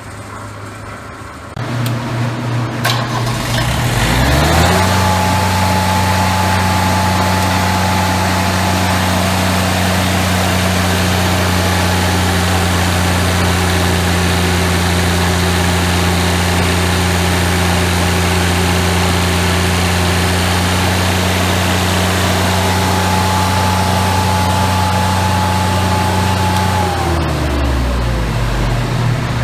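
Kubota diesel engine of a Lincoln Ranger engine-driven welder revving up from idle a few seconds in and holding a steady high speed while the welder is loaded on a load bank. It pulls almost 300 amps against a 250-amp rating, showing that the replaced injection pump lets it reach full RPM. Near the end the revs drop back down.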